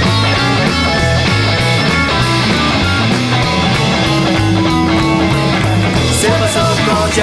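Rock band playing an instrumental passage: electric guitars, bass and drums, with a held guitar note in the middle.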